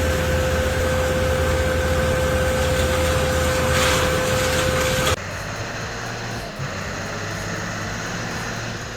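A loud engine running steadily with a constant high whine, cutting off sharply about five seconds in. It is followed by a quieter truck engine pulling steadily under load, a six-cylinder swap described as "pulling hard".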